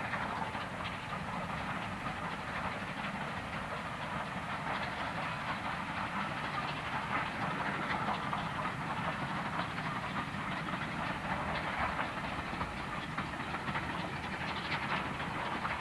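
Bulleid Light Pacific steam locomotive 34072 '257 Squadron' working a passenger train past at steady, unbroken volume: a continuous exhaust beat mixed with the rumble of the coaches on the rails.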